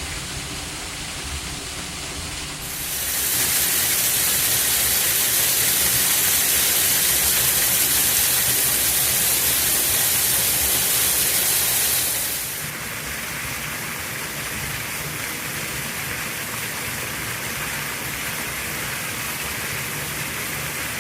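Small waterfall rushing steadily over rock, a continuous hiss of falling water; it grows louder about three seconds in and drops back about twelve seconds in.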